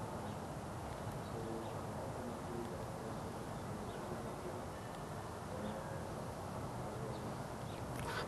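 Outdoor ambience: a steady low rumble with a few faint, short chirps scattered through it, and a sharp click near the end.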